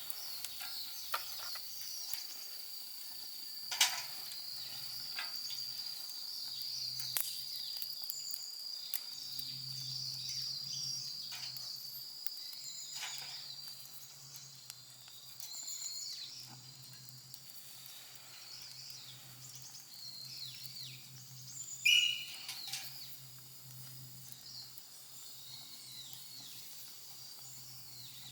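Wood campfire crackling with scattered sharp pops, the loudest about 4 seconds in and near 22 seconds, over a steady high-pitched insect drone from the forest that fades out about halfway through.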